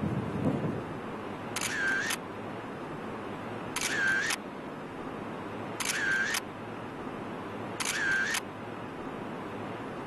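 Camera shutter going off four times, about two seconds apart, each shot about half a second long, over a steady background hiss.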